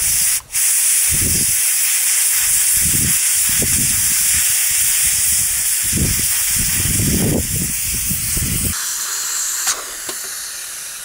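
Hawkins 1.5-litre pressure cooker venting its steam in a loud, steady hiss as its weight is held up to release the pressure at the end of cooking. The hiss breaks off briefly about half a second in and weakens at about nine seconds as the pressure falls.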